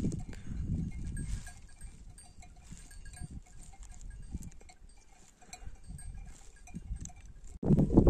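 Small bells on a grazing flock of sheep clinking faintly and irregularly, over a low rumble. A sudden louder burst of noise comes in just before the end.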